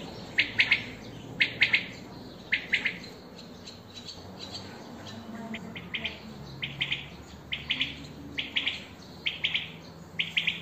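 A songbird chirping: short runs of two to four quick, high chirps, repeated about once a second.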